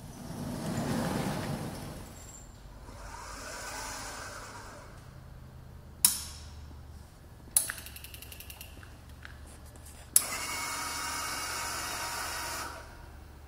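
ESAB Suprarex CNC gas profile cutting machine running under power: two swells of mechanical running noise, then two sharp clicks, the second followed by rapid ticking. About ten seconds in, a steady hiss starts suddenly and cuts off after about two and a half seconds.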